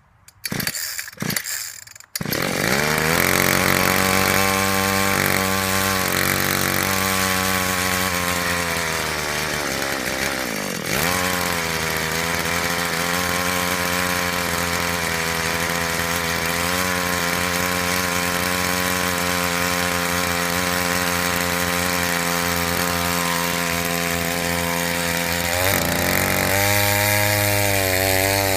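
Two-stroke chainsaw engine on a homemade minibike: a few quick pull-cord strokes, then it catches about two seconds in and runs at high revs, sagging briefly near the middle and climbing again near the end. The clutch is slipping under the load, smoking, as the rider believes.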